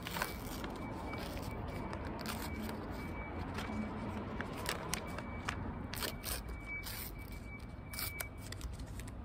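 Paper crepe wrapper crinkling and tearing as it is peeled down from around the crepe: a run of irregular short crackles over a low steady rumble.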